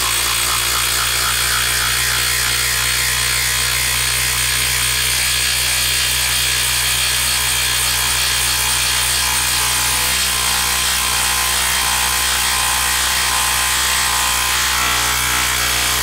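Makita LXT brushless 1/4-inch hex impact driver hammering steadily under heavy load as it drives an 8-inch screw deep into a moist log.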